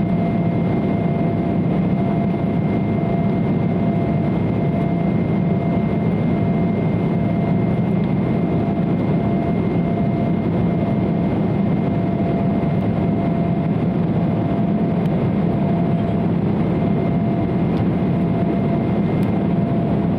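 Steady cabin drone of an Embraer 170 airliner in flight, its engines and airflow heard from a seat in the cabin, with a constant whine running through it.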